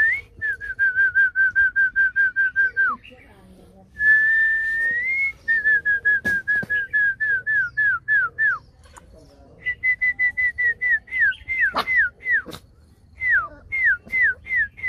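A person whistling to call a litter of Rottweiler puppies: a rising note, then runs of quick short pips at about five a second, broken by another long rising note, the later pips each dropping in pitch. A few sharp yaps from the puppies cut in during the second half.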